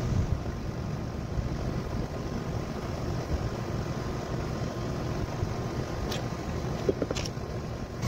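Steady low rumble of outdoor background noise, with two faint clicks near the end.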